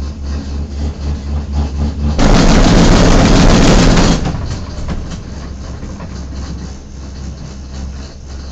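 Gondola cable car cabin, heard from inside, passing over a tower's roller sheaves. A low steady rumble with rapid pulses swells about two seconds in to a loud, noisy rumble for about two seconds as the grip runs over the sheave train. It then settles to a quieter steady rumble as the cabin travels on along the rope.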